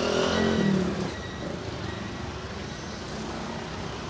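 Street traffic: a motorbike engine passes close by, loudest in the first second, then a steady hum of traffic.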